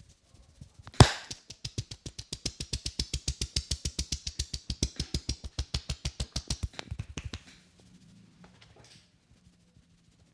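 Hands tapping rapidly and rhythmically on a person's head in an Indian head massage, about eight strikes a second, for some six seconds. It opens with one sharp, louder strike about a second in.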